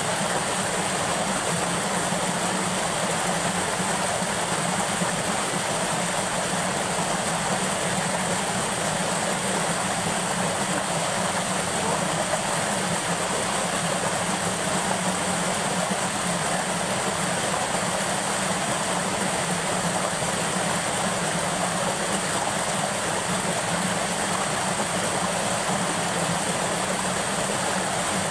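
Steady rush of river water pouring over a low ledge and flowing fast over a shallow bed, with no change.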